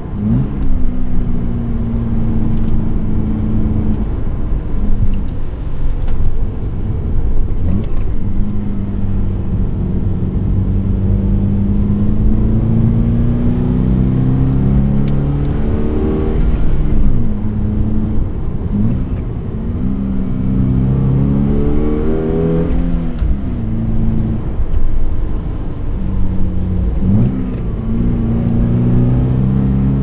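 Toyota GR86's 2.4-litre flat-four engine under load while driving. The revs climb steadily, then fall away at each gear change, several times in a row.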